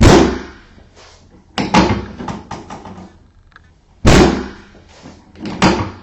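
Drop pieces of a chiropractic adjusting table dropping with a loud clack under the chiropractor's thrusts (drop-table technique), four times, about one and a half to two and a half seconds apart, with lighter clicks in between.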